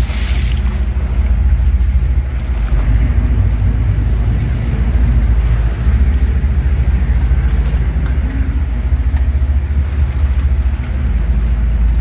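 Boat engine running at a steady low hum, with a haze of wind and water noise over it and a brief hiss right at the start.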